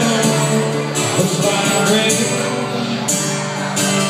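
Two acoustic guitars strummed together in an instrumental passage of a slow song, played live through a PA system.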